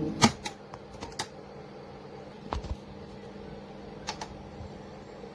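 Playback cuts off with a sharp click, then a few scattered clicks and knocks from handling the boombox's buttons, the last two close together about four seconds in, over a faint steady hum.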